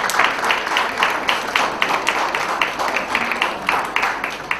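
Audience applauding, with a steady run of claps at about four a second standing out, dying away near the end.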